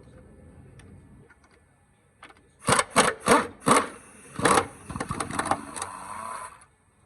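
Cordless power tool's motor whirring in several short trigger bursts, about three a second, then running steadily for about two seconds before stopping, as it spins out engine bracket bolts.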